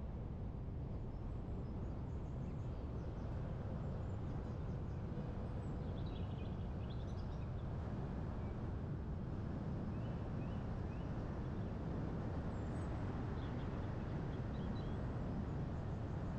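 Steady low rumble of wind, with birds chirping briefly a few times over it.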